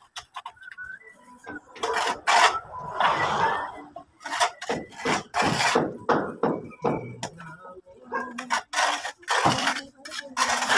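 A long hand tool scraping against a wall in repeated, irregular strokes, each stroke a short, harsh rasp.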